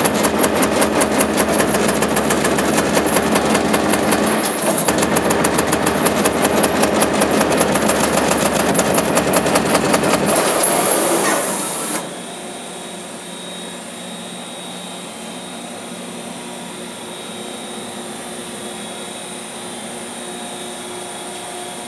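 Amada EMZ 3610NT CNC turret punch press, an AC servo direct-drive machine, punching sheet metal in a rapid, even run of hits, with a short break a little before halfway. The hitting stops suddenly about halfway through, leaving a quieter steady hum.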